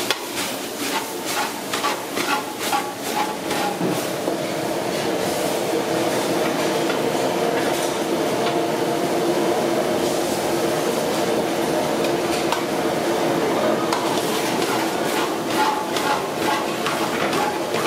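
Food cooking in a pan: a steady sizzle, with a metal utensil clicking and scraping against the pan, the clicks busiest in the first four seconds and again near the end.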